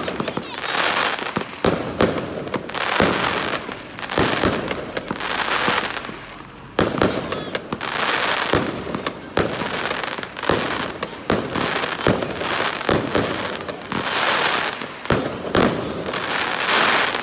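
Aerial fireworks display: many sharp shell bursts in quick succession, with swells of hiss about a second long between the bangs.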